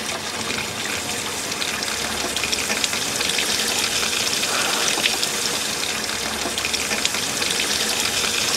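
Kitchen faucet running steadily into the sink, a continuous splashing stream of tap water that carries enough gas to be lit.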